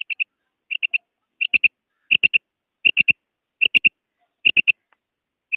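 Quail (batair) calling: a quick three-note call, repeated about every three-quarters of a second.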